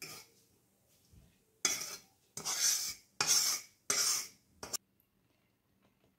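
Metal spoon scraping roasted semolina out of a pan onto a steel plate: a series of short, separate scrapes, about five in quick succession.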